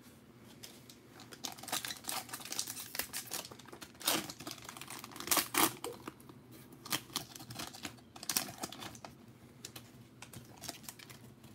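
A 2020 Prizm football hobby pack's foil wrapper being torn open and crinkled by hand. Irregular crackles start about a second in, are thickest in the middle and thin out near the end.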